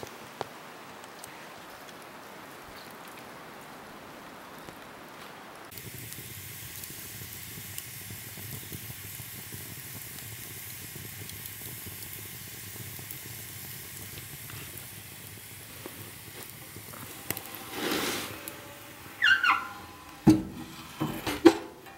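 A wood fire burning in a wood stove, a steady hiss with faint crackles. Near the end come several metal clanks and a short squeak as the stove's door and handle are worked.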